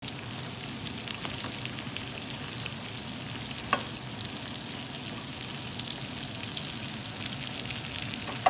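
Whole shell-on shrimp sizzling in garlic butter in a frying pan, with a steady crackle of spattering fat. A slotted spatula stirs them, knocking sharply against the pan once a little before the middle.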